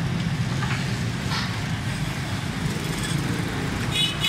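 Steady low rumble of road traffic, with a brief high beep near the end.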